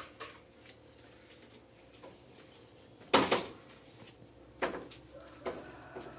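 A few sharp knocks or clatters against a quiet background. The loudest is a double knock about halfway through, with two smaller ones in the last two seconds.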